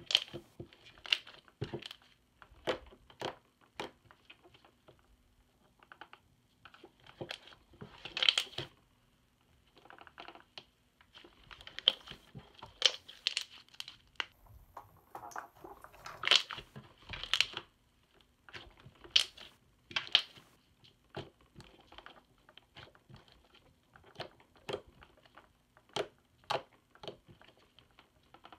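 Hands kneading, stretching and pressing a soft butter slime made by mixing Play-Doh into slime, giving irregular sticky pops and clicks, some single and some in quick clusters.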